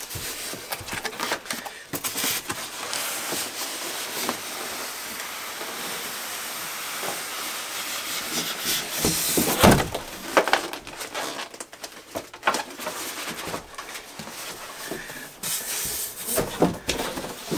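Cardboard and styrofoam packing rubbing and scraping as foam shipping pieces and a foam block are pulled out of a cardboard box, with a few sharp knocks about ten seconds in.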